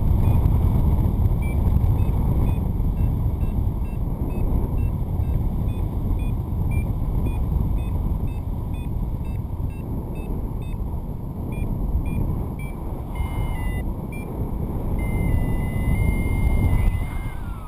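Wind rushing over the microphone in flight, with a paragliding variometer beeping about twice a second, the beeps that signal climbing in rising air. Near the end the beeps give way to longer held tones that step in pitch.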